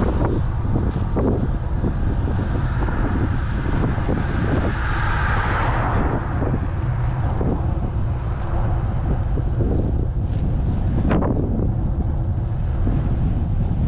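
Wind and road noise rumbling steadily on a handlebar-mounted camera's microphone on a moving road bicycle, with a brief rushing swell about five seconds in and a single sharp knock near the end.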